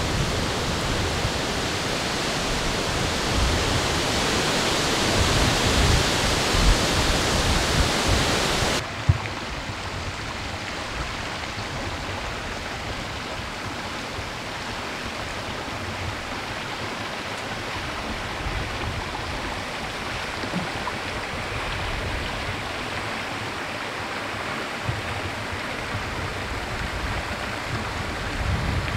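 Outdoor wind noise rushing over the microphone, with low buffeting thumps. About nine seconds in it cuts off abruptly to a softer, steady outdoor hiss.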